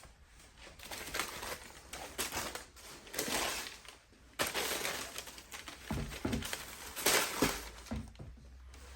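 Tissue paper from a sneaker box rustling and crinkling as it and the shoe are handled, in a series of bursts, with a couple of soft thuds about two-thirds of the way through.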